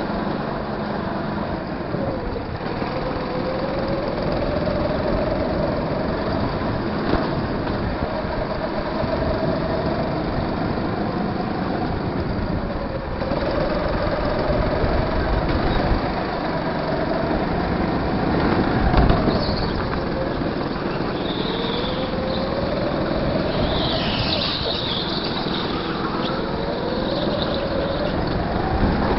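Go-kart engine running under the driver's foot, its pitch climbing for several seconds along each straight and dropping back into each corner, about five times over.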